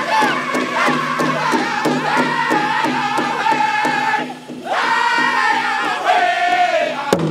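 Powwow drum group singing a men's chicken dance song: several men's voices in high unison over a large shared hand drum struck in a steady beat. The melody steps downward, with a brief break in the singing about halfway through.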